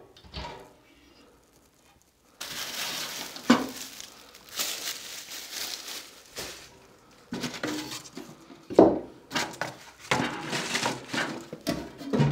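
Split firewood being laid into the firebox of a wood-burning stove: wood scraping, rustling and clattering against the metal, with several sharp knocks, the loudest about nine seconds in.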